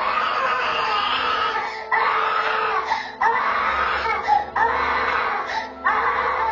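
A toddler screaming and crying: a run of about five wailing cries, each a second or so long, with short breaths between them.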